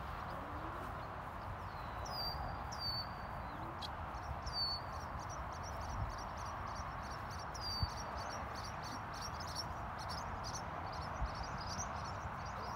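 Birds calling over steady outdoor background noise: about four whistled calls that slide down and hold a high note, and from about four seconds in a long run of quick, repeated chirps.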